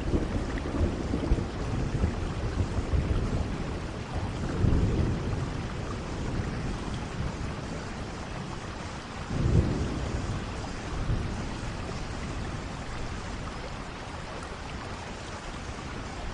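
Steady rain with low rolling thunder rumbles that swell near the start, about four and a half seconds in, and most strongly about nine and a half seconds in.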